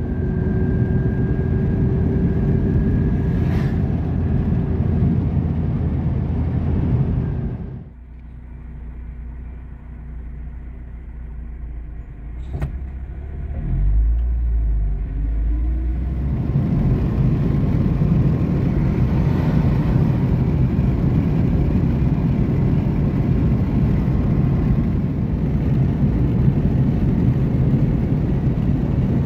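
Car driving, a steady engine-and-road rumble. About eight seconds in it drops much quieter for several seconds, with a single click, then comes back to the same steady rumble.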